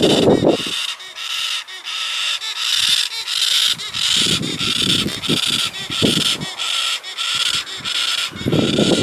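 Galahs' harsh, continuous screeching: one rasping call repeated about twice a second without letup. The uploader takes this constant noise for adult galahs masking their hidden chick's squawks. A low rumble comes at the start, again in the middle and near the end.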